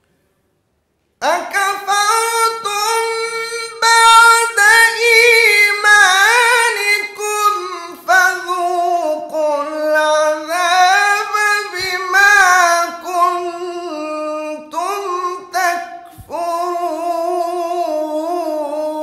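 A man reciting the Quran in the melodic tajweed style: a high, sustained voice with long drawn-out notes and ornamented turns. It begins about a second in and breaks briefly for breath twice.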